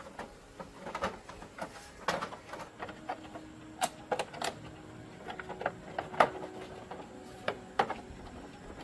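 A run of irregular clicks and light knocks from hand tools and small motorcycle parts being handled during the repair.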